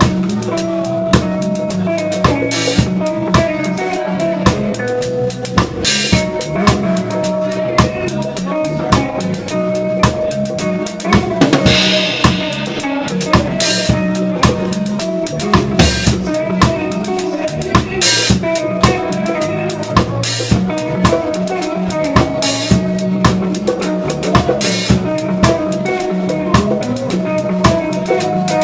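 Reggae band playing live, heard from right beside the drum kit: drum kit hits and cymbals loud and steady over held bass and other instrument notes.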